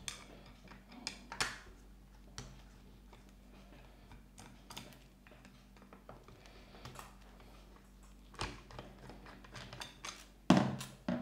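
Scattered light clicks and taps of tool parts and a screwdriver being handled while the front of an oscillating multi-tool is taken apart, with a louder knock near the end.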